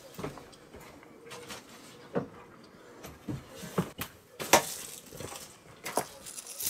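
Several light knocks and clicks at irregular intervals, the loudest about four and a half seconds in.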